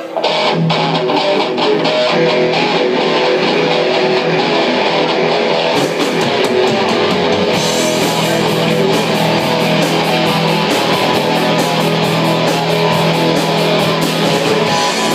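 Live rock band playing, led by electric guitar. The sound fills out about seven and a half seconds in, with a steady beat and a fuller low end.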